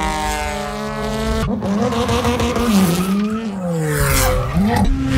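Subaru WRX STI rally car's engine revving hard as it drifts, its pitch swinging up and down, with tyres skidding. The engine note changes abruptly about a second and a half in.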